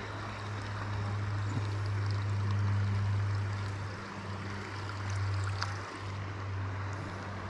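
Steady rush of river current around a person wading in deepening water, with a steady low hum underneath.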